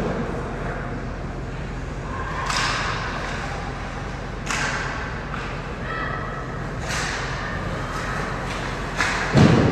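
Ice hockey play in a rink: sharp scrapes and clacks of skates and sticks on the ice every couple of seconds over a steady arena hum, with a loud heavy thud near the end.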